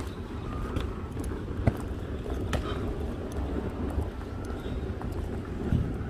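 Outdoor street ambience: a steady low rumble of road traffic with wind on the microphone, and a few scattered sharp clicks and knocks.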